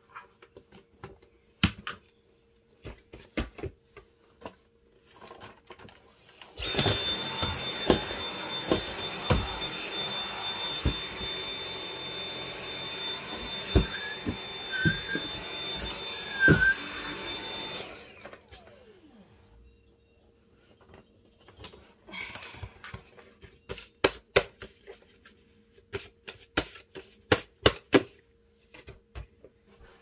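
A vacuum cleaner is switched on about six seconds in and runs with a steady high-pitched whine for about eleven seconds, then is switched off and winds down. Light knocks and clicks come before and after it.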